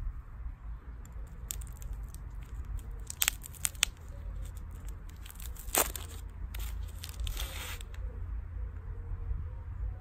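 Thin clear plastic wrapper being pulled off a ball on a stick: crinkling and tearing in short irregular bursts, sharpest a little after three seconds in and again near six seconds, over a steady low rumble.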